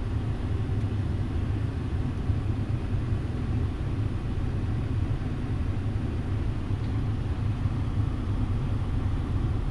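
Mazda CX-5 idling, heard from inside the cabin as a steady low rumble.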